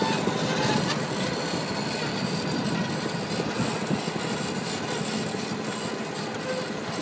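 Sod harvester running steadily, its engine and turf conveyor making a dense mechanical noise.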